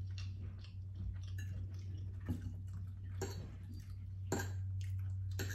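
Quiet eating and table sounds: a few light clicks of a fork against a plate and the handling of food, over a steady low hum.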